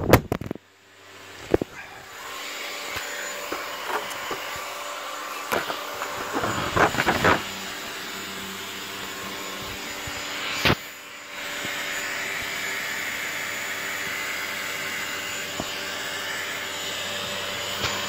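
Electric cooling fan running steadily, with a few scattered clicks and knocks from handling. A sharp click about ten and a half seconds in is followed by a brief dip, after which the fan comes back slightly louder and higher.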